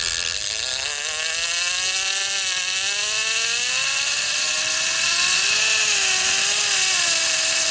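Fishing reel's drag whining as a hooked shark pulls line off the spool, its pitch slowly rising and falling with the speed of the run, over a steady hiss of surf and wind.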